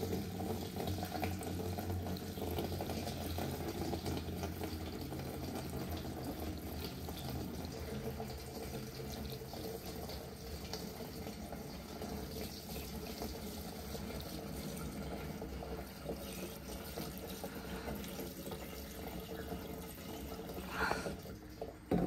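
Gasoline pouring from a plastic jug through a metal funnel with a filter screen, a steady splashing stream that slowly weakens as the jug empties. A couple of brief knocks come near the end.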